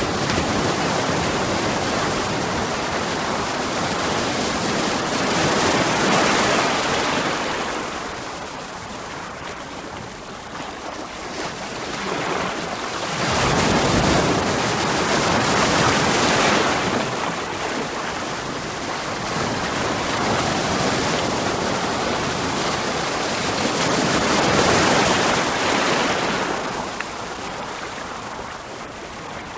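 Ocean waves breaking on rocks: a continuous rush of surf that swells three times, about six, fifteen and twenty-five seconds in.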